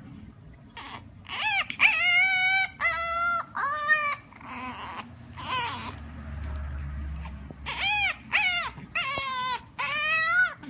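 French bulldog puppy whining and yelping in a run of high calls, each rising then falling in pitch. The calls come in two bunches with a pause in the middle.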